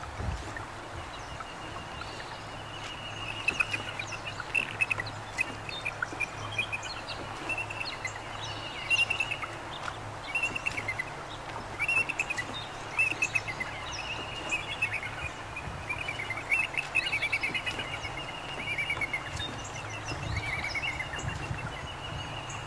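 Birds chirping and singing in short, high, repeated phrases, over a steady wash of wind and lapping water.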